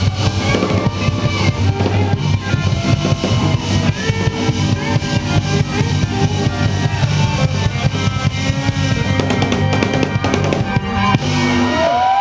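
Live band with drum kit, guitar and trumpets playing a song's outro, with a heavy kick-drum thump from the stage monitor close by. The band stops about a second before the end.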